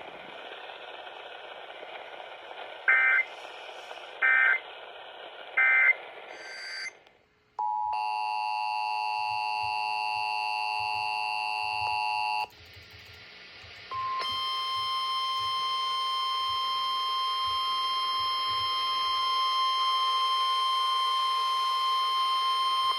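Emergency Alert System tones over radio hiss. First come three short data bursts about a second and a half apart, as in the end-of-message code. Then a steady two-tone attention signal sounds for about five seconds and, after a short pause, a steady single-pitched warning tone comes in about 14 seconds in.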